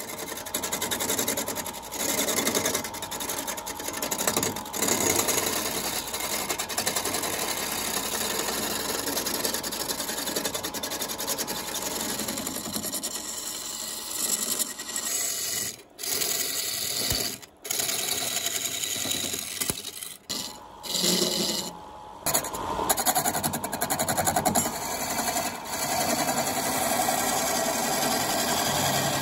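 Wood lathe spinning a wooden cylinder while a hand-held chisel cuts into it: a steady rough cutting noise over a faint motor hum, broken by a few short gaps past the middle.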